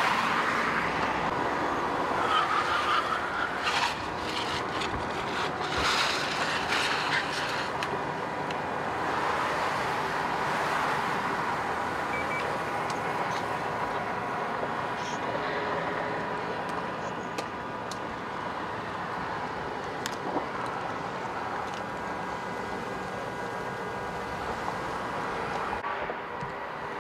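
Freeway traffic passing at speed: a steady rush of tyre and engine noise, with several louder, sudden noises in the first eight seconds.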